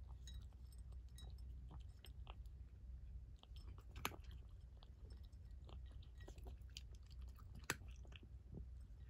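Domestic cat eating from a ceramic bowl: faint, irregular chewing clicks, with two louder sharp clicks, about four seconds in and near the end.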